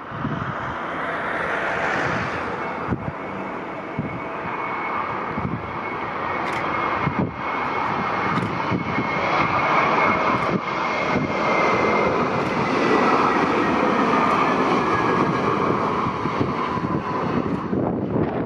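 Passenger jet airliner's engines passing close by: a steady engine noise with a high whine, growing to its loudest about two-thirds of the way through and then easing off.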